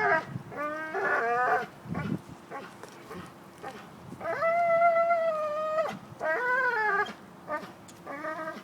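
American bulldog whining in high-pitched, drawn-out calls: a few short bending whines, then one long steady whine about four seconds in, followed by more short ones.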